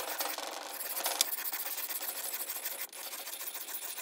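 Steel knife blade being stroked across the coarse side of a wet double-sided whetstone: a steady gritty rasp of metal on stone, with a short break about three seconds in.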